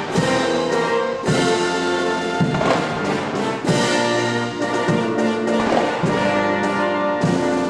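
Military band playing slow ceremonial music for a state welcome, brass leading with held chords that change about every second or so.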